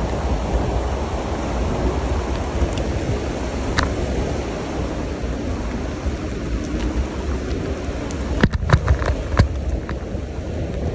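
Steady rushing hiss of a bicycle riding on a rain-wet cycle path, with a deep rumble underneath. There is a quick run of knocks and rattles between eight and nine and a half seconds in.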